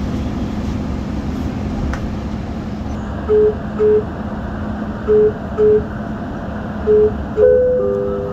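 Dubai Metro train's door-closing warning: from about three seconds in, three pairs of short beeps, then a longer falling two-note chime near the end. Under it runs the steady hum of the train standing at the platform.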